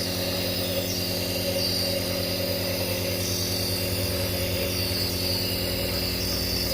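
Omron compressor nebulizer running steadily, its motor giving a constant even hum while it turns the medication into mist for the face mask. Over the hum a high, airy tone wavers up and down about once a second.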